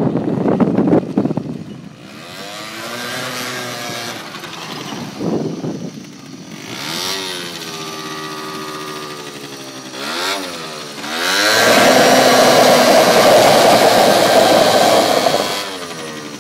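Peugeot Vivacity scooter engine in a Forshaga Shopper microcar: the vehicle first drives past close by on gravel, then the engine idles with a wavering pitch and is blipped twice. About eleven seconds in it is revved high and held for about four seconds, then drops back toward idle near the end.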